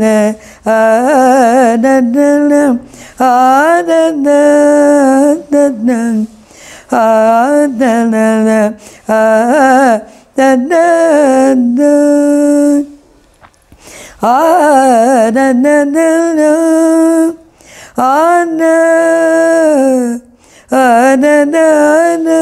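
An elderly woman singing solo without accompaniment, holding long notes with a wavering pitch in phrases of a second or more, with brief breath pauses and a longer pause about two-thirds of the way through.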